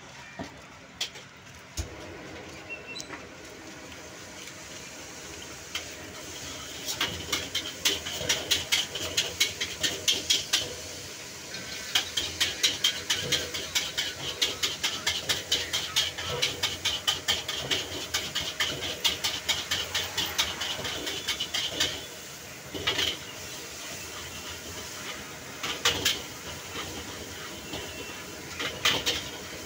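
Metal spatula scraping and clanking rapidly against a wok, several strikes a second, as noodles are stir-fried, over a steady sizzling hiss. The fast clanking stops about two-thirds of the way through, and a few single knocks follow.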